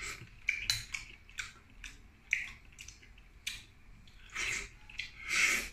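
Close-up mouth sounds of eating shellfish: wet smacks and chewing while meat and broth are sucked from a shell, ending in two longer slurps.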